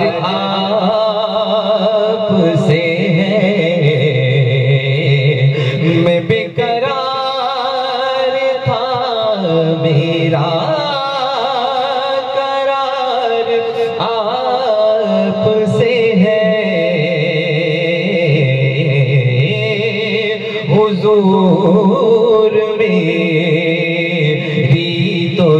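A man sings a naat, a devotional Urdu song in praise of the Prophet, solo into a microphone, in long gliding lines.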